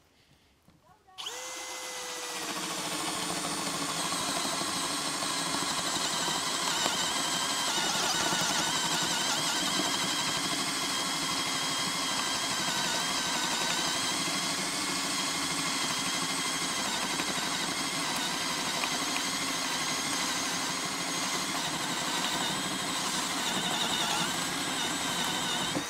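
Bosch GSB 185-LI 18 V brushless cordless drill in low gear, boring a 40 mm hole in wood with a spade bit, larger than the drill's rated 35 mm maximum. The motor starts about a second in and its whine drops in pitch as the bit bites. It then runs steadily under heavy load as the bit chews through the board, and cuts off at the very end.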